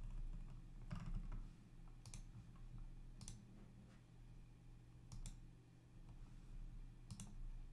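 Computer mouse button clicking about six times, irregularly, a second or two apart, over a faint low steady hum.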